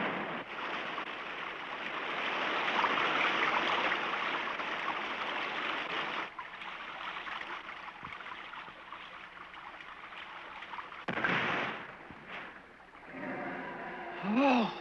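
Rushing, churning water from a cartoon soundtrack: a swirling whirlpool, then a waterfall pouring. It runs loudest for about six seconds, then drops to a softer steady rush, with a brief louder surge about eleven seconds in.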